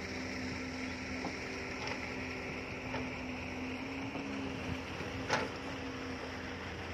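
Hitachi crawler excavator's diesel engine running steadily under load as it digs and dumps soil, with one sharp clank about five seconds in.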